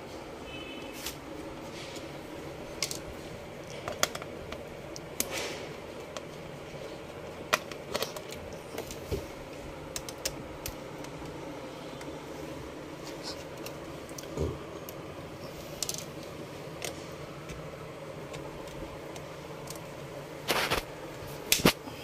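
Small screwdriver clicking and scraping as it turns out screws on the underside of a Dell Latitude E5420 laptop, with scattered taps of screws and parts handled on a hard table. There is a louder clatter near the end over a steady background hum.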